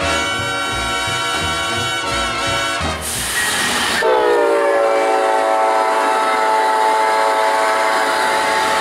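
Diesel locomotive horns sounding: one held multi-note chord, a short hiss about three seconds in, then a second held horn chord from about four seconds in that dips slightly in pitch at its start and holds steady.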